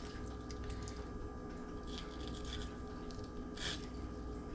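A sharp Dexter fillet knife slicing through a speckled sea trout's flesh along the spine on a wooden cutting board: a few soft, wet cutting strokes, the clearest about three and a half seconds in. A steady faint hum sits underneath.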